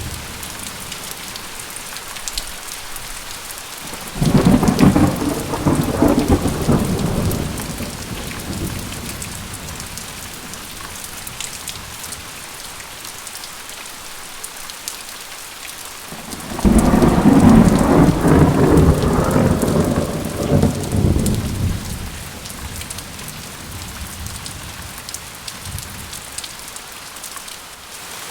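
Steady rain falling, with two rolls of thunder: one breaks in suddenly about four seconds in and rumbles for a few seconds, and a second, slightly longer one comes about halfway through.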